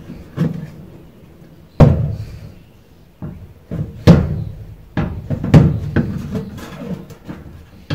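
Knocks and clunks from handling a ceiling tube light fitting on a shed's metal roof beam, a string of sharp hits each with a short ringing decay, the four loudest in the middle of the stretch.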